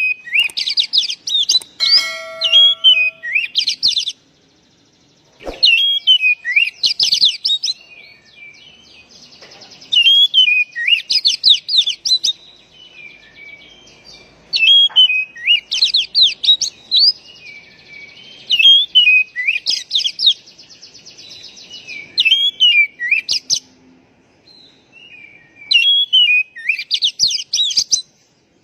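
Oriental magpie-robin (kacer) singing: bouts of quick, sweeping whistled and chattering notes, each a few seconds long, separated by short pauses.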